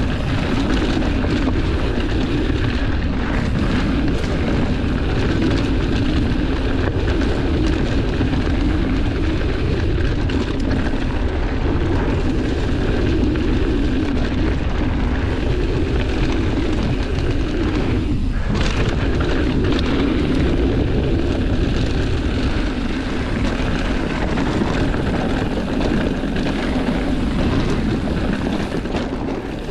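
Mountain bike riding fast down a dry dirt singletrack, with a steady rush of wind on the microphone and the tyres rumbling over the dirt.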